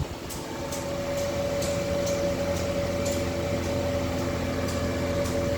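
Electric motor running at a steady speed on a Fuji FRENIC HVAC variable-frequency drive, giving a steady whine with a low hum beneath it and a faint regular ticking about twice a second.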